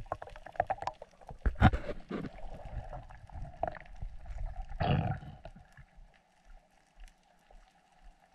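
Underwater sound picked up by a diver's camera: scattered clicks and knocks, with two louder rushes of noise about two and five seconds in, then a faint steady hum.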